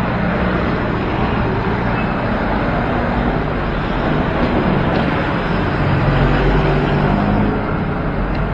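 Steady road traffic noise with a low rumble of vehicle engines and tyres, picked up by an action camera's built-in microphone.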